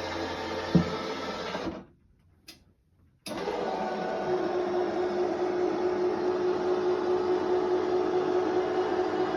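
A steady mechanical hum from a small motor, with one sharp click under a second in. It cuts out abruptly for about a second and a half, then comes back with a steady tone in it.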